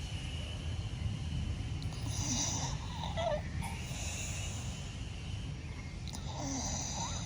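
Staffordshire bull terrier snoring in her sleep: about three wheezy, hissing breaths, roughly two seconds apart, over a steady low rumble.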